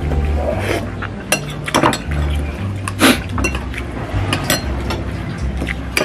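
Metal spoon and fork clinking against a glass bowl several times, with sipping of noodle-soup broth, over background music with a low bass line.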